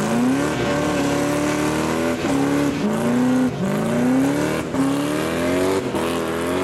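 Supercharged 1995 Ford Thunderbird's V6 revving hard for a burnout, its pitch climbing and then falling off sharply about five times in a row, over the hiss of spinning tyres.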